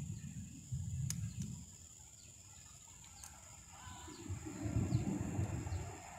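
Gusts of wind buffeting the microphone as a low, uneven rumble, strongest at the start and again near the end, with a few faint bird chirps and a steady thin high whine over it.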